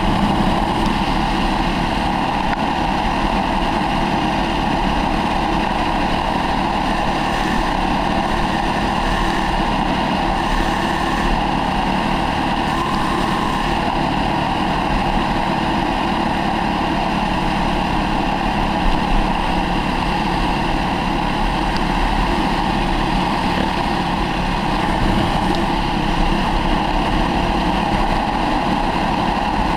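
Dirt bike engine running steadily at road speed, heard from a camera on the rider's helmet.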